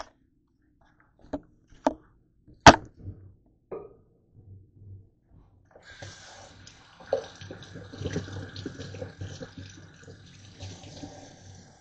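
A few sharp knocks, the loudest about two and a half seconds in, then a kitchen tap running into a stainless-steel sink from about six seconds in, splashing over hands rinsing under it, cutting off near the end.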